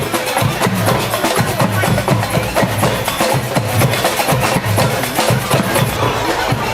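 Samba band drumming a fast, steady rhythm: sharp, quick strokes over deep, pulsing bass drum beats.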